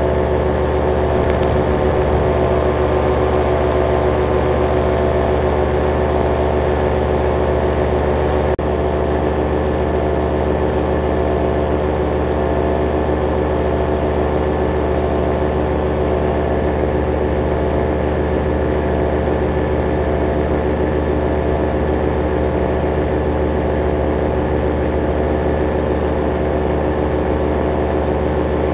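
Paramotor engine and propeller running steadily at cruise power, heard from the flying pilot's own harness, a constant multi-toned drone. A single short click comes about eight and a half seconds in.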